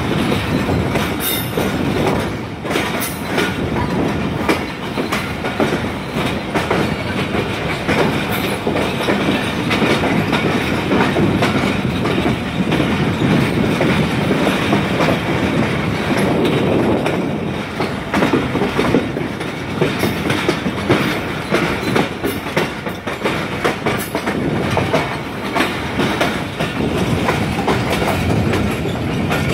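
Moving Pakistan Railways passenger train heard from an open coach door or window: a steady rumble of the coaches with frequent clicks of the wheels running over rail joints.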